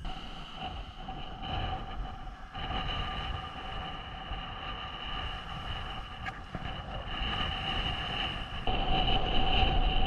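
Strong wind buffeting the microphone in a gusty low rumble, with steady high tones running through it; the rumble grows louder near the end.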